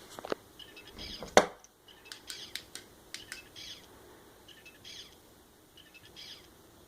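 Bird-like chirping sound effects from a homemade electronics project display: short downward-gliding chirps repeating irregularly, with a sharp click about one and a half seconds in, the loudest thing heard.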